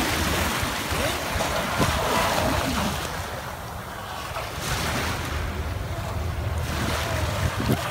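Wind buffeting the microphone over choppy water, with small waves lapping. A battery-powered radio-controlled hydroplane boat runs out on the water.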